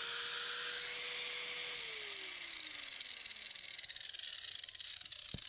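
Small electric motor whirring at a steady pitch, then winding down with a slowly falling pitch as it coasts to a stop, about two seconds in. Insects chirp in the background, and there is a single click near the end.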